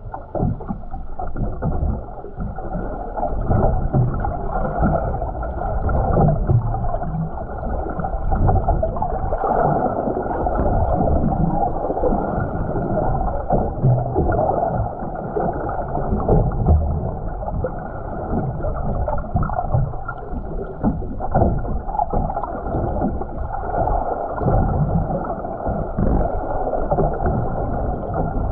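Muffled, dull water noise from a camera submerged just below the sea surface: a continuous low rumble and sloshing that swells and fades.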